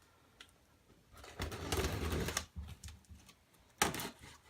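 Cardboard shipping box being handled and opened: a rustling, scraping stretch of about a second and a half, then a couple of sharp clicks near the end.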